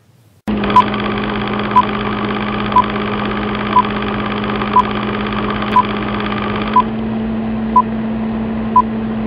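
Film-countdown sound effect: the steady whirring hum of a running film projector, with a short high beep once a second, nine times, marking off the numbers of the countdown.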